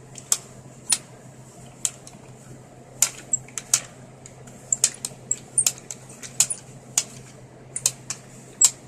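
Irregular sharp clicks and clacks of small hard objects, about two or three a second, over a faint steady hum.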